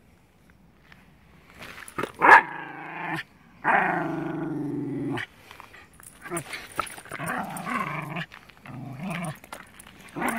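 Welsh terrier growling in several drawn-out bouts, starting about two seconds in, with a sharp loud bark-like burst at the start of the first bout.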